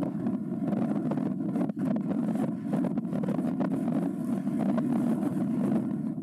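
Wind buffeting the microphone: a steady low rushing noise with frequent short gusty flutters.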